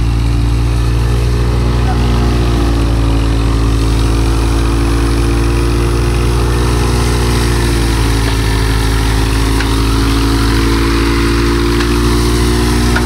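Tractor-driven grain thresher running steadily: the tractor's engine hum under a broad rushing noise of the drum and fan blowing out chaff. The pitch sags slightly about two-thirds of the way through, then holds.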